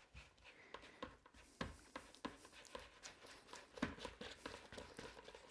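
Hands working a lump of homemade flour-and-water play dough, mixing in food colouring: faint, irregular soft taps and clicks of the dough and fingers against the surface.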